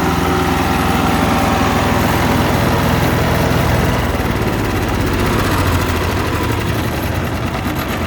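Ducar wood chipper's 420 cc gasoline engine running steadily, then starting to wind down near the end as it is shut off.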